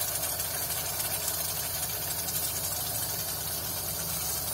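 Hot butter caramel in a saucepan sizzling and hissing steadily with cold cream just poured into it.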